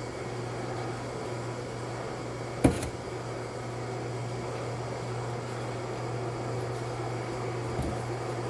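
Steady low machine hum, with one sharp knock about two and a half seconds in and a softer knock near the end.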